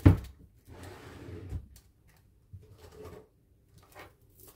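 Handling noises: a sharp thump at the start, then rustling and a few light clicks and taps as things are rummaged through and a packet of metal planner discs is pulled out.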